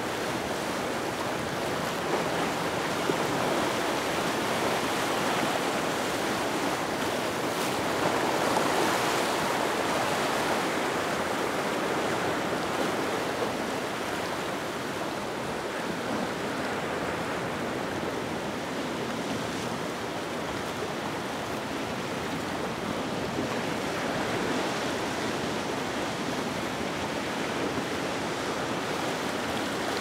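Rough sea surf: a steady rush of breaking, whitecapped waves with wind, swelling slightly about a third of the way in.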